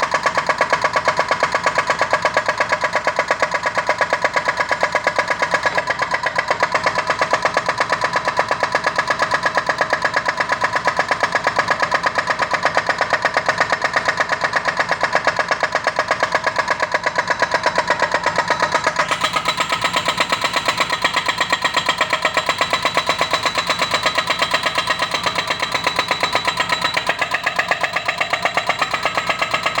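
Doosan DX140W wheeled excavator's diesel engine running steadily as it works, with a rapid, even pulse.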